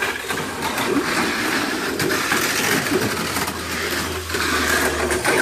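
Tamiya Mini 4WD cars running laps on a plastic track: their small electric motors whir steadily, with rapid clattering of the cars against the track.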